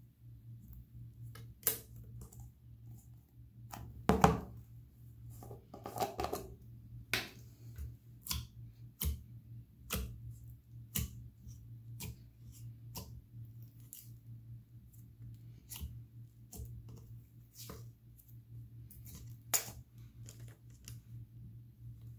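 Thick slime in a plastic tub being poked and pressed with fingers, giving a run of sharp pops and clicks, with two longer, wetter squelches about four and six seconds in.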